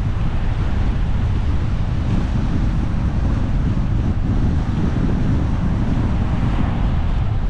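Wind buffeting the microphone of a camera riding along on a moving road bike: a steady, loud rush of noise, heaviest in the low end.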